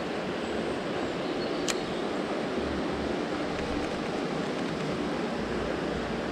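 Steady rush of a shallow river running over a stony riffle, with a single sharp click a little under two seconds in.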